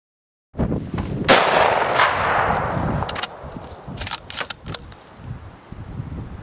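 A single rifle shot about a second in, its report echoing and dying away over a couple of seconds, over a low rumble. A few sharp clicks follow near the middle.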